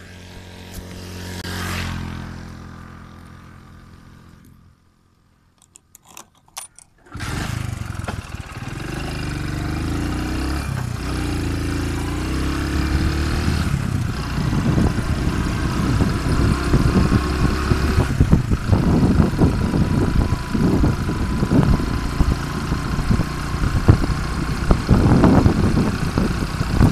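A motorcycle engine running with a steady hum that swells and fades in the first few seconds, then a brief near-silence with a few clicks. From about seven seconds in come loud wind buffeting on the handlebar-mounted phone microphone and road noise over the engine as the bike rides on, growing a little louder toward the end.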